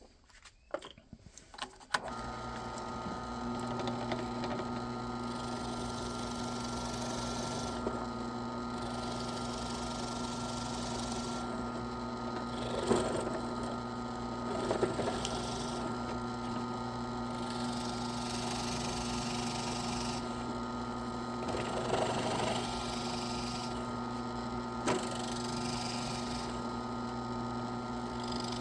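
A small electric power tool starts about two seconds in and runs at a steady pitch, working a piece of resinous pine fatwood into sawdust, with a few short, louder scrapes where the bit bites into the wood.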